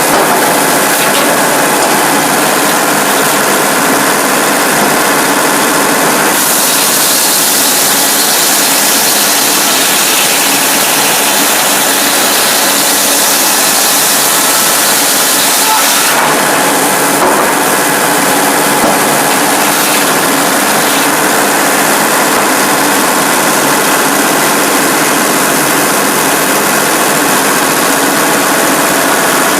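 Sawmill's Cummins diesel power unit running steadily. A brighter, hissier sound rises over it from about 6 to 16 seconds in.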